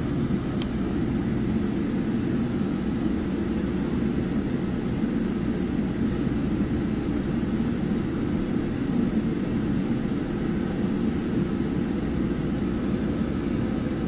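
Metrolink commuter train running steadily along the track, heard from inside the passenger car as an even low rumble of wheels and motion.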